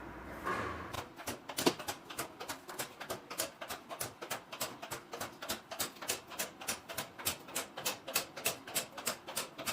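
The combo vending machine's locker locks releasing one after another after a single open-all command: a rapid, even run of sharp clicks, about four to five a second, with one louder knock near the start.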